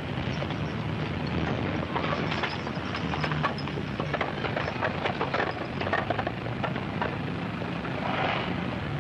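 1920s-style city street ambience: a steady low traffic rumble under a dense scatter of small clicks and knocks, swelling briefly near the end.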